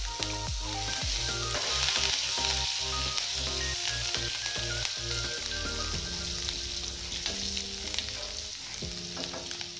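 Chopped green chillies sizzling in hot oil with mustard seeds, cumin and asafoetida in a tempering, stirred with a wooden spatula. The sizzle is brightest about two seconds in.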